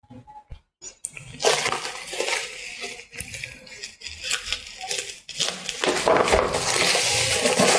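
Black plastic bubble wrap crinkling and rustling as it is handled and slit open with a utility knife. A few small clicks at the start, then a dense crackle from about a second in that grows louder near the end.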